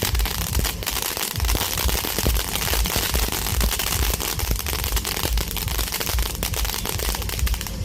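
A string of firecrackers going off in a rapid, continuous crackle of pops.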